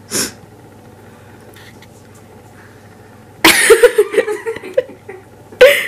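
A young woman bursts out laughing about three and a half seconds in, after a quiet pause, with a short second burst of laughter near the end.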